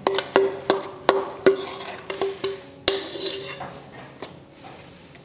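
A metal spoon knocks batter out of a stainless steel mixing bowl. About nine ringing clanks come at two to three a second and stop about three seconds in. Softer scraping follows as the batter is spread in a metal baking tin.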